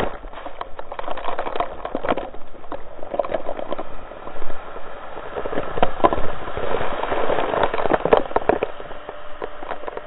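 Slowed-down sound of an ocean storm wave breaking over a pier and drenching the camera: a steady rush of water full of crackling spray splatters, thickest in the second half.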